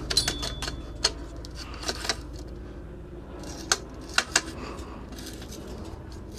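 Light metallic clicks and clinks of tools and bicycle parts being handled, bunched in the first second, with a few sharp taps around four seconds in, over a steady low hum.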